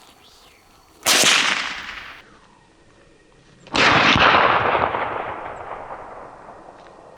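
Two shots from a Winchester 94 lever-action .22 rifle, about two and a half seconds apart, fired at a rabbit that is hit. Each crack dies away in a long echo, the second for several seconds.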